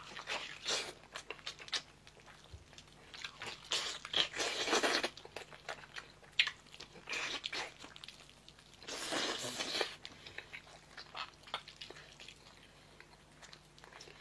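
Eating sounds as a man bites, tears and chews braised meat off a large bone. They come in irregular bursts with short pauses, loudest about four to five seconds in and again about nine seconds in.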